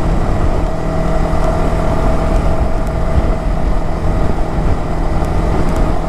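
Yamaha R15M's single-cylinder engine running at a steady cruising speed, with wind rushing over the microphone.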